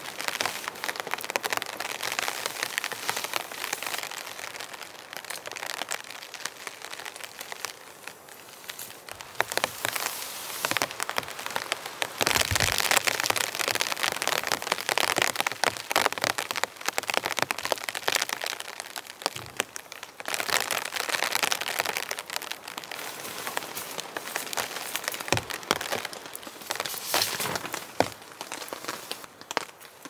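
Rain pattering steadily on nylon tent and tarp fabric, with fine drop ticks and the rustle and crinkle of the tarp being handled as guy lines are pulled tight. The rain gets heavier for a few seconds near the middle, and there are a few dull thumps.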